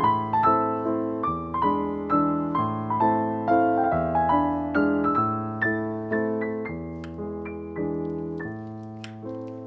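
Gentle solo piano background music, notes struck about twice a second over slow-changing bass notes, fading gradually toward the end.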